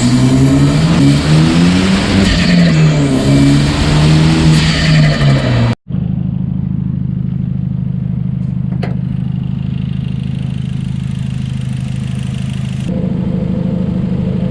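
2013 Hyundai Genesis Coupe's turbocharged four-cylinder engine revving, its pitch rising and falling repeatedly. After an abrupt cut about six seconds in, it idles steadily.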